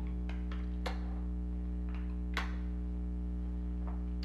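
A few light clicks and taps of hands and a screwdriver driving screws back into a plastic toy's casing, over a steady electrical hum.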